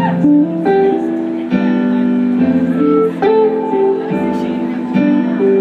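Live band playing an instrumental passage on guitar and keyboard, the chords changing about once a second.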